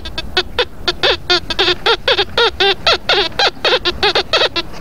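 TX 850 metal detector's audio signalling a target under the sand: rapid short beeps, several a second, each bending up and then down in pitch as the coil swings back and forth over it.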